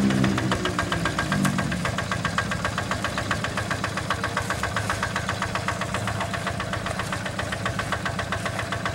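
The single-cylinder diesel engine of a two-wheel hand tractor, running. It slows in the first couple of seconds, then settles into a steady, rapid, even knocking idle.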